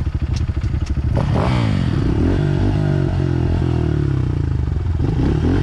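Dirt bike engine, just restarted after stalling, idling with a fast even pulse, then revved about a second in, its pitch rising and falling with the throttle.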